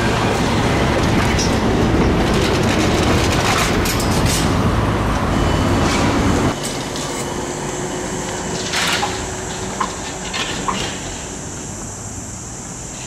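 Articulated electric trolleybus passing close in street traffic, with a run of sharp clicks and clatter as it crosses the overhead-wire junctions and rails. About halfway through, the sound drops to a quieter street background with a steady high whine and a few single knocks.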